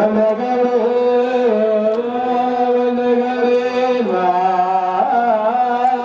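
Ethiopian Orthodox prayer chant: a slow sung melody in long held notes that slide from one pitch to the next.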